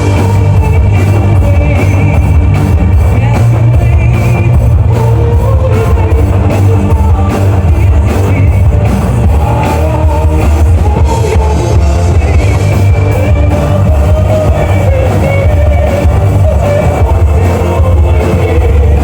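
Loud rock music from a band: electric guitar and drum kit over a heavy bass line, with a voice singing.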